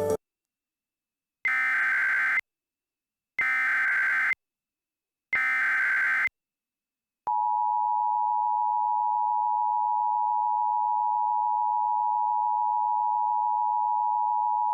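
Emergency Alert System header: three one-second bursts of SAME digital data tones, spaced about two seconds apart. About seven seconds in, the steady two-tone attention signal starts and holds.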